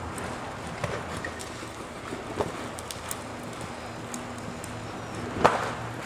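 Hooves of a cantering horse on soft dirt arena footing: a few dull, scattered thuds over a steady low hum, the loudest thud about five and a half seconds in.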